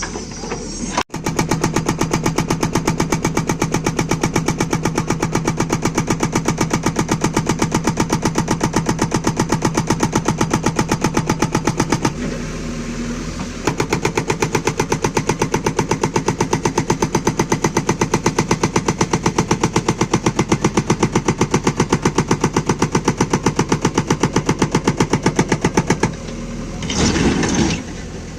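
Hydraulic rock breaker on a JCB 3DX backhoe loader hammering, rapid even blows over the diesel engine, in two long runs with a short break about 12 s in. The hammering stops about 26 s in, followed by a brief louder surge of the engine.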